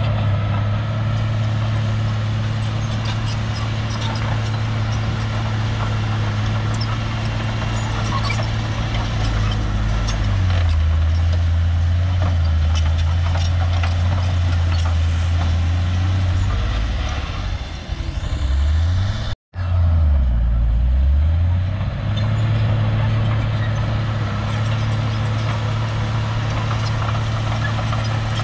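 Shantui crawler bulldozer's diesel engine running steadily, with light clicking throughout. About a third of the way in the engine note drops lower and holds there. It then swoops down and back up, cuts out for an instant about two-thirds through, and settles back at its first pitch.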